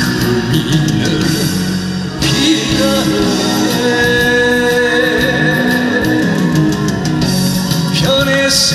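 A man singing a Korean trot song live into a handheld microphone over amplified backing music with guitar, holding a long note about halfway through.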